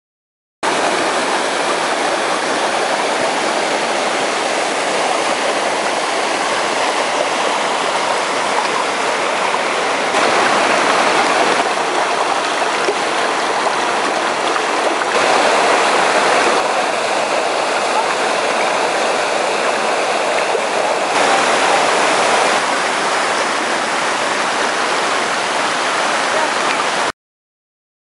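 Creek water rushing over granite ledges in a steady whitewater hiss. The level and tone shift abruptly a few times.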